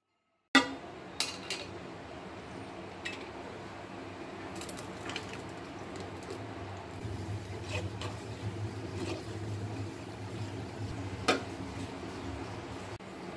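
Steel kitchenware clinking and knocking: a mixer-grinder jar, its lid and a strainer being handled while ground coconut paste is strained for coconut milk. A sharp knock about half a second in is the loudest, followed by scattered lighter clinks over a steady low hum.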